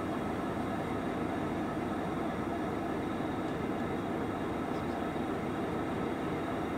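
Diesel locomotives idling, a steady low rumble without change.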